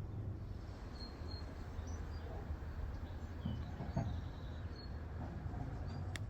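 Garden ambience: a steady low rumble with scattered short, high bird chirps.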